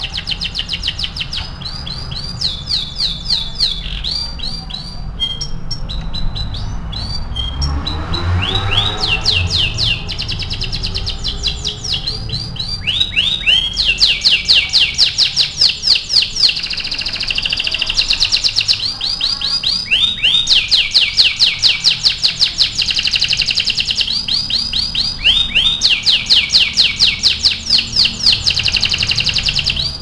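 Domestic canary singing a long, loud song of rapid trills: runs of fast repeated notes lasting a second or two each, switching from one trill to the next, and busiest in the second half. It is a lure song meant to set other canaries singing.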